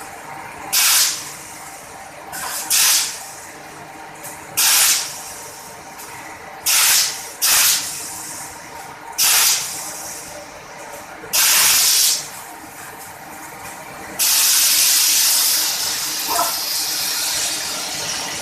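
A tyre curing press vents pressure in short, loud hissing bursts, about one every two seconds. Near the end comes one long hiss of about four seconds.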